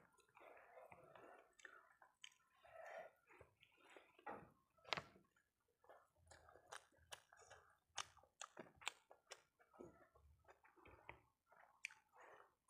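Quiet, close-up chewing of a piece of fried egg omelette, with many short wet mouth clicks.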